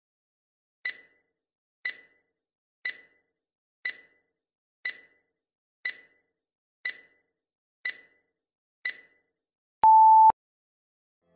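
Quiz countdown timer sound effect: nine short ticks, one a second, then a single louder steady beep about half a second long as the timer reaches zero.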